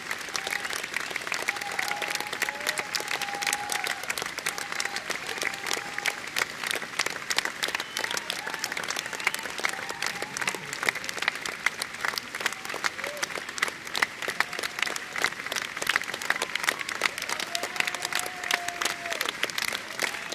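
Large concert audience applauding steadily with dense clapping, and a few shouts from the crowd.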